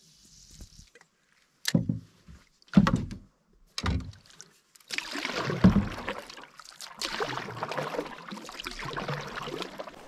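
Canoe on the water: three hollow knocks against the hull about a second apart, then a steady swishing and splashing of water about halfway through.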